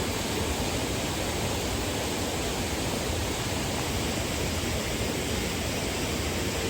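Waterfall rushing, a steady, even roar of falling water with no change.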